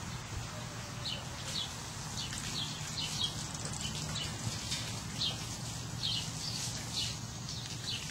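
A small bird chirping over and over, short high chirps roughly twice a second, over a steady low hum.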